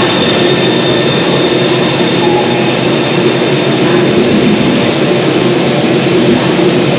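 AnsaldoBreda driverless metro train running through a tunnel, heard from inside the car: a steady, loud rumble of wheels on rails with a thin, high whine held throughout.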